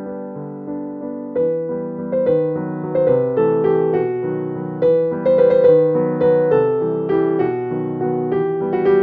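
Background piano music: a gentle melody of single notes over a chordal accompaniment, growing fuller and louder about a second and a half in.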